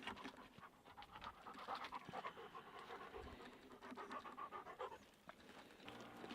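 A dog panting faintly in a quick, uneven rhythm.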